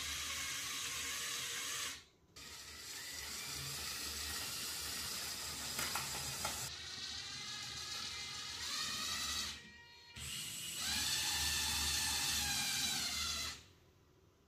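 Small electric motors of a Mould King 13112 remote-controlled brick excavator whirring through their gears as they drive the boom, stick and bucket actuators. The whine runs in three stretches, stops briefly about two seconds in and again around ten seconds, and cuts off shortly before the end.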